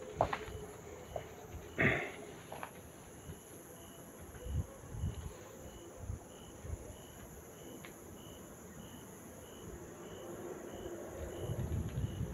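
A faint, high chirp repeating evenly, about three times every two seconds, with scattered knocks and steps; the loudest knock comes about two seconds in.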